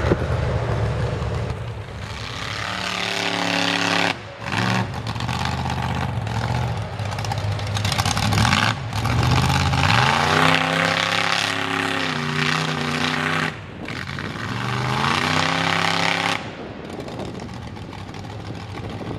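Mega Dodge mud truck's built V8 engine revving hard in repeated bursts, pitch rising and falling again and again, with several abrupt cuts.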